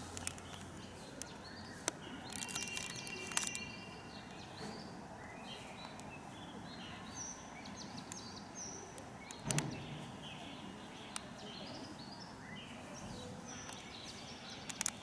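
Outdoor ambience with small birds chirping now and then. A few sharp clicks and one louder knock a little past halfway.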